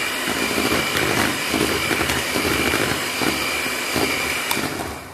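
Electric hand mixer running on low speed, its beaters mixing flour into cake batter: a steady motor hum with a high whine, fading near the end.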